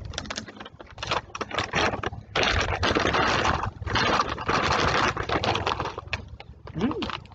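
Clear plastic snack bag of oven-baked parmesan crisps crinkling and rustling as it is opened and handled. The crackling comes in short bits, then two long stretches in the middle.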